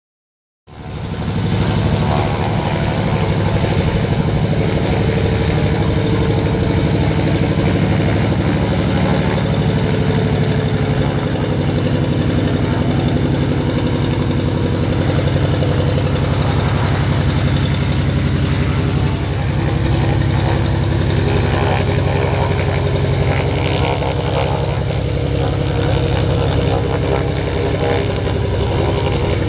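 Single-engine floatplane's engine and propeller running steadily at high power as it moves across the water on its floats. The sound starts abruptly about a second in.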